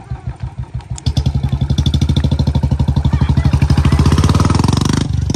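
Royal Enfield Bullet Standard 350's single-cylinder engine through a short bottle exhaust, thumping at idle about five times a second. About a second in it gets suddenly louder and the thumps quicken steadily as it revs up, with a short break near the end.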